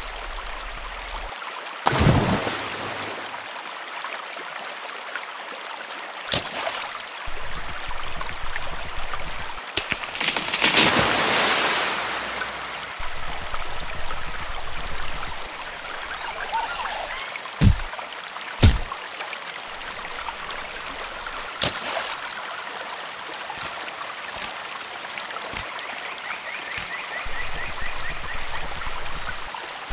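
Steady flowing-stream water ambience, broken by a few sharp knocks and thuds and a longer rush of noise about ten seconds in.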